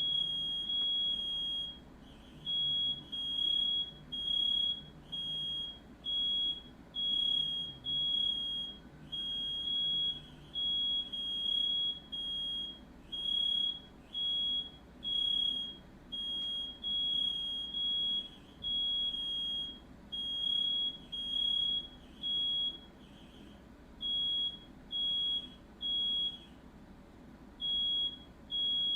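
Smoke alarm sounding: repeated short, high-pitched electronic beeps, about one to two a second in an uneven pattern, set off by smoke from the fire.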